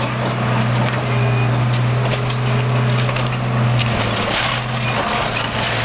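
Caterpillar 939 crawler loader's diesel engine running steadily under load, with the engine note dipping briefly about two-thirds through. Over it, a house's wooden framing cracks and splinters as the machine tears into it.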